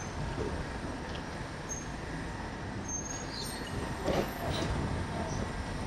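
Steady rumble of city street traffic, with a couple of brief high-pitched squeaks.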